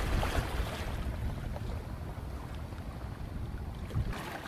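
Wooden fishing boat's engine running under way, a steady low rumble, with wind buffeting the microphone and water rushing along the hull. A brief low thump near the end.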